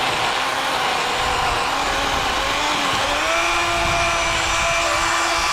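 Worx WG384.9 cordless electric chainsaw with an 18-inch Oregon bar, running under load as it cuts through a soft pine stem. The motor's whine steps up in pitch about three seconds in, as the load on the chain eases.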